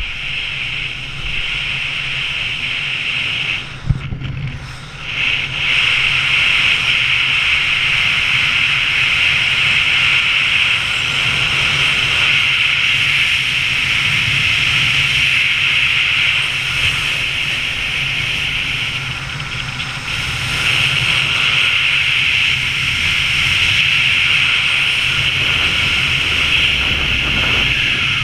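Skis sliding fast over tracked snow with a loud, steady hiss, which breaks off briefly about four seconds in, over the low rush of wind on the helmet camera's microphone.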